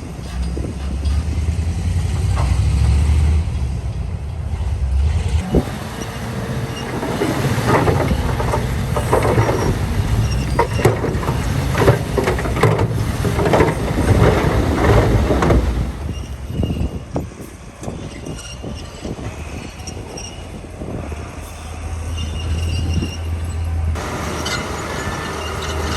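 Komatsu D41P crawler bulldozer working, its diesel engine running with a steady low hum. From about six seconds in to about sixteen seconds there is a long stretch of dense metallic clanking and scraping, typical of steel tracks and blade working dirt.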